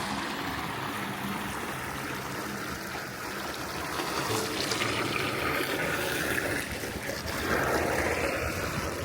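Water running and trickling steadily, growing louder about four seconds in and again near the end.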